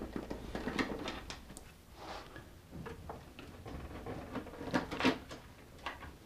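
Screwdriver backing screws out of a plastic plotter cover: a string of small clicks, taps and scrapes of metal on screw and plastic, with the loudest clicks about five seconds in.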